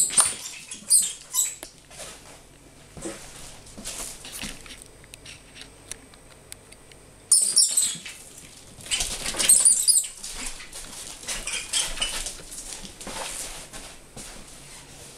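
Lemming squealing in short, shrill bursts in distress as a kitten attacks it, with scuffling and pattering of paws on a wooden floor. The squeals cluster near the start and again in a long, loud stretch from about seven seconds in.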